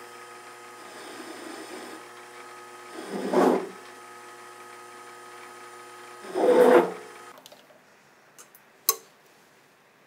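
Benchtop lathe motor running with a steady hum while a 29 mm indexable-insert drill is pushed into steel twice, each time a short, louder cutting noise; the drill's centre is not cutting because the X axis is out of line. The motor stops about seven seconds in, and a single sharp click follows.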